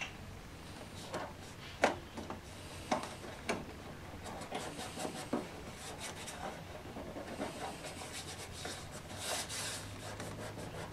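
Fingers pressing and rubbing a strip of thin card down onto a glued model roof frame: irregular light taps and dry rustling rubs, with a longer rubbing swish near the end.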